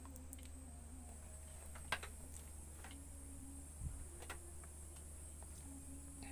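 Quiet repair bench: a few faint, sharp clicks and light taps, the sharpest about two seconds in, from tools or meter probes being handled around a phone circuit board, over a steady low hum.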